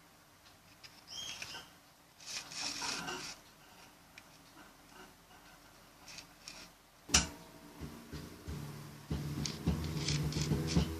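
Faint rubbing and scraping as slime ingredients and containers are handled, with a sharp click about seven seconds in. Background music with a ticking beat starts near the end.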